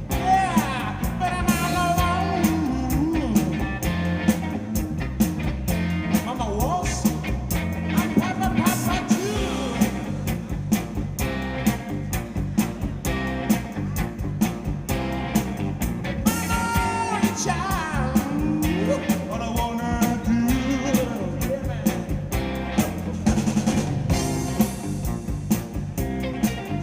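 Rock band playing: electric guitar with bending notes over a steady, busy drum beat.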